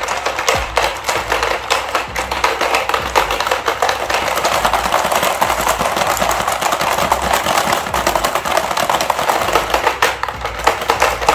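Rapid, continuous clicking and clattering of a frog ball-grabbing board game: plastic levers pressed over and over as the frogs snap forward and rattle the balls about.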